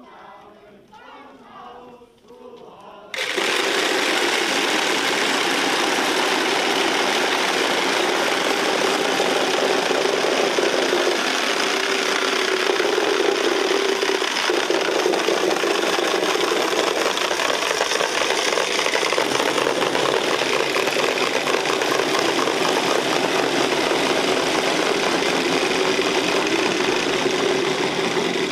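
A group of wooden Easter rattles (Osterklappern) being worked at once, a loud, dense, continuous clatter of rapid clacks that starts suddenly about three seconds in; the rattling stands in for the church bells silenced during Holy Week. Faint singing is heard before the clatter starts.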